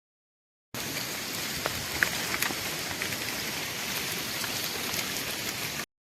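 Rain falling: a steady hiss with a few sharp drop ticks. It starts and cuts off abruptly.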